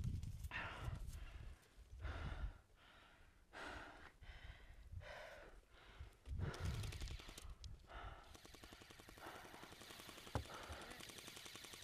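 A person breathing hard close to the microphone, drawing several separate breaths, with low rumbles on the microphone and a single sharp click near the end.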